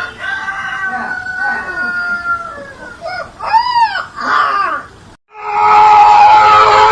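An animal calling: one long drawn-out call, then shorter rising-and-falling calls. After a sudden cut, a loud, noisy sound with a steady held tone.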